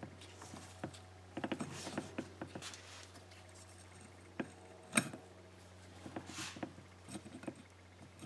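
Light metallic clicks and taps of a Yamaha Blaster's clutch pressure plate being seated and lined up against the clutch basket and plates by gloved hands, in small scattered clusters, with the sharpest click about five seconds in.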